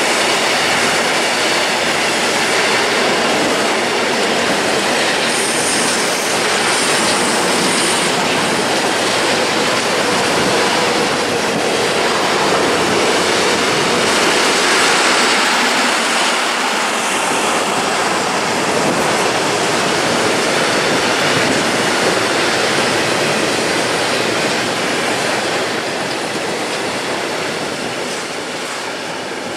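Freight train of pressurised gas tank wagons rolling past at speed: a steady, loud rush of steel wheels on rail, with a brief high wheel squeal about six seconds in. The noise begins to fade near the end as the last wagon goes by.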